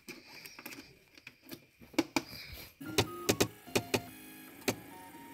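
A few clicks and handling noise at the 3D printer's control knob. From about three seconds in, the printer's stepper motors sound short steady tones that change pitch, note by note, mixed with loud sharp clicks: the printer is playing a MIDI tune converted to G-code.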